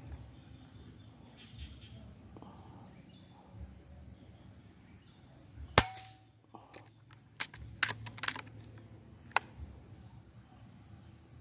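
A single shot from a silenced, regulated PCP air rifle about halfway through, with a short ringing tone after it. A few sharp clicks follow over the next few seconds.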